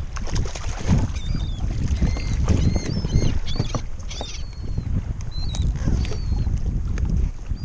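Choppy water lapping against a kayak hull with wind rumbling on the microphone, while seabirds overhead give many short, high calls. A few sharp knocks from handling gear on the kayak.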